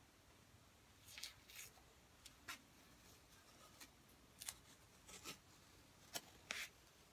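Masking tape being peeled off the painted wooden body of a didgeridoo in short tugs: about ten brief, sharp rips at uneven intervals.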